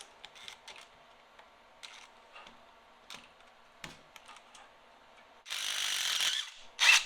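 Socket ratchet wrench clicking in short, irregular strokes as a bolt on a snowblower bracket is loosened, then about a second of rapid, continuous ratcheting as the bolt spins free, and a sharp clack near the end.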